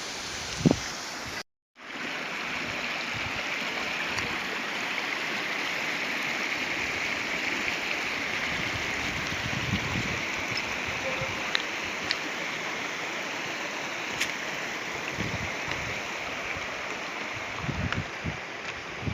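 Steady rushing of a flowing stream, cut off for a moment about a second and a half in, with a few faint clicks and low thumps over it, more of them near the end.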